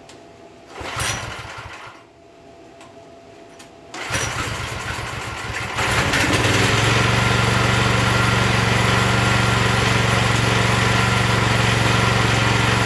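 Pressure washer's small gasoline engine being pull-started. A first pull about a second in gives a brief burst that dies; the second pull about four seconds in catches, and by about six seconds the engine is running steadily.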